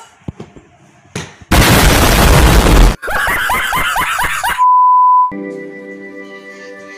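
Meme sound effects: a loud blast of noise about a second and a half long, then a man yelling, cut off by a short steady beep tone. After that, soft sustained keyboard music begins.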